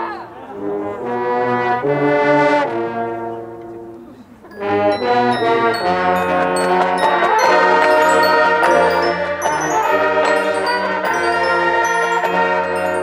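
Marching band brass playing sustained chords: a swell that fades to a quiet point about four seconds in, then the full band comes back loud and holds, with short high struck notes from the mallet percussion on top.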